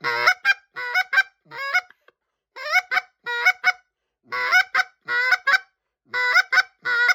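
Get'em Down goose call blown by mouth with a hand held over it: a run of about ten short honks, coming in loose pairs (the double cluck), each cracking from a low note up to a high one.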